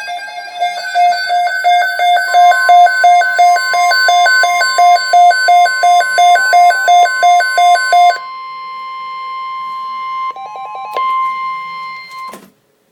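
Emergency alert tones on a weather radio broadcast: a warbling two-tone alarm beeping about three times a second, joined about two seconds in by a steady high warning tone. The warble stops about eight seconds in, leaving the steady tone, which cuts off suddenly shortly before the end. The tones signal an alert being broadcast, here a severe thunderstorm watch.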